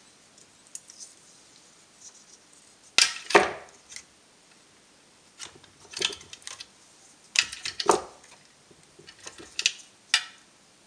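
Bursts of clicking and clattering as a cordless-drill battery pack of cells and small tools are picked up and moved about on a workbench: five short bouts, the loudest about three seconds in.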